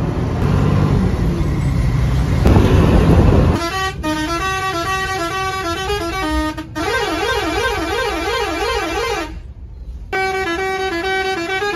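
Bus engine and road noise, then from about three and a half seconds a loud multi-tone musical horn playing a stepped melody, with a warbling passage in the middle. It breaks off briefly near the end, then plays on.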